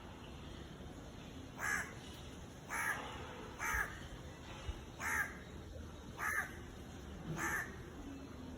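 A crow cawing: six harsh caws, each short and about a second apart, starting a couple of seconds in.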